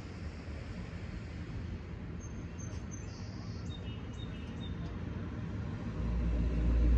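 Outdoor ambience of wind buffeting the microphone, with a few short high bird chirps in the middle. A heavier low rumble of wind comes in near the end.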